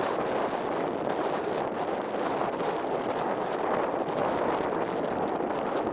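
Strong wind buffeting the microphone: a steady, dense rush of noise with no let-up.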